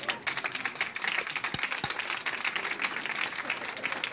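Studio audience applauding, a dense run of many hands clapping together.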